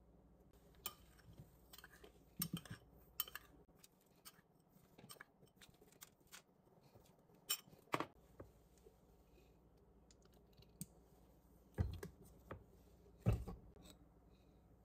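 Scattered light clicks and taps of a spoon and kitchenware as seasoning is spooned over raw chicken drumsticks in a roasting pan, with two heavier knocks near the end as a jar of BBQ sauce is handled.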